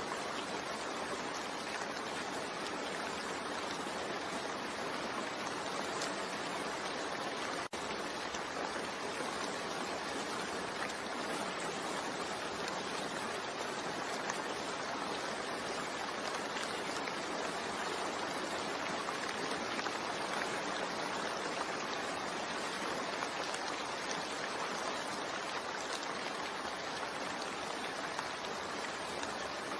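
Steady rain, an even hiss with no distinct drops or pattern. It dips out for an instant about eight seconds in.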